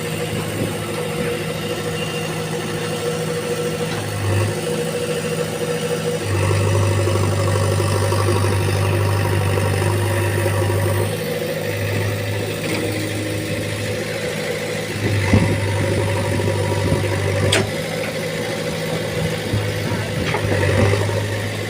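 JCB backhoe loader's diesel engine running steadily, its low hum swelling and easing in stretches of a few seconds as the machine works, with a couple of sharp knocks in the latter half.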